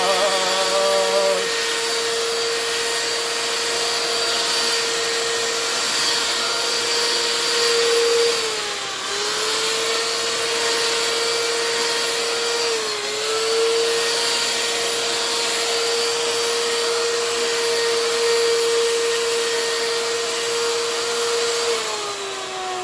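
Electric hand mixer running steadily with a whine as its beaters whisk gravy in a pot. The pitch dips briefly twice midway, and the motor winds down near the end as it is switched off.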